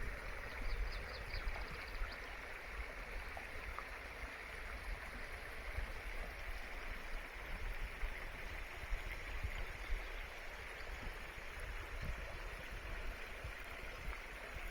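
A stream flowing steadily with an even rushing sound, over an uneven low rumble. A short run of faint high ticks sounds in the first second or so.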